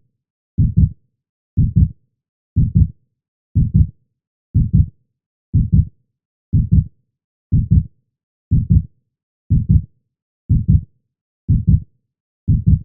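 Heartbeat sound effect: steady low lub-dub double beats, about one a second (roughly 60 a minute), with silence between beats.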